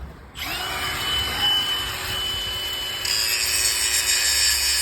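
A power tool starts about half a second in, spinning up to a steady whine. About three seconds in it turns harsher and hissier.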